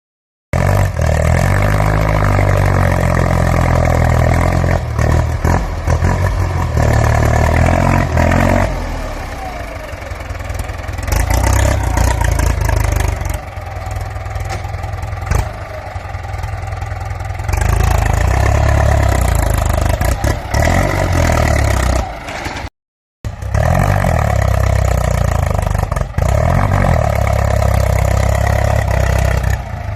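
Ford 6640 tractor's diesel engine running loud, revved up and let back down to idle again and again. The sound drops out for a split second just before 23 seconds.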